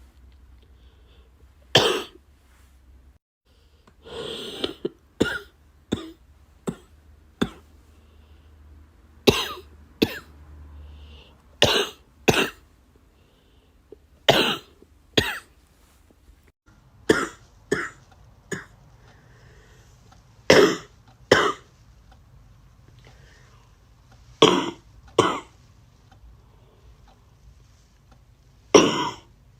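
A person coughing over and over, about twenty short coughs, singly and in quick pairs, a second or a few seconds apart.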